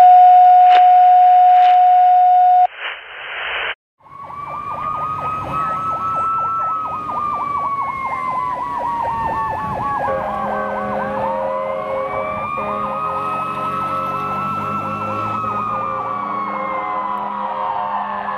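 A loud steady electronic tone for the first two and a half seconds, then, after a short break, a fire engine's siren: a wail that rises and falls slowly twice, over a faster warbling tone.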